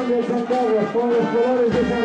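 Marching band playing: brass carrying a tune in repeated phrases, with a bass drum beat near the end.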